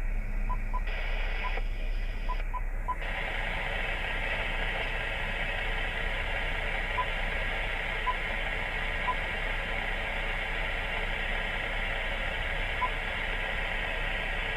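Ham radio HF transceiver's speaker giving a steady hiss of band static, fuller from about three seconds in, with a scattering of short beeps from its controls as it is tuned. No station comes through: the band is dead.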